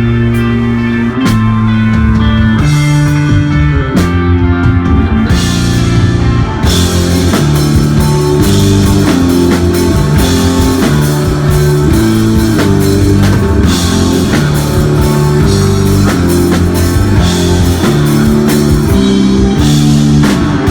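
Live desert rock band playing electric guitar, bass and drum kit, the bass moving through a line of held low notes. Cymbals come in about six seconds in and keep going.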